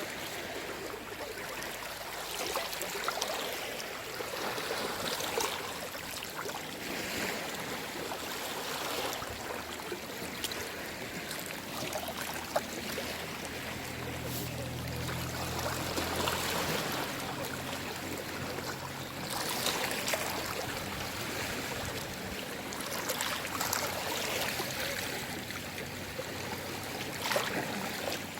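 Gentle sea waves washing in, a steady hiss of water that swells softly every few seconds. A faint low hum comes in for a few seconds midway.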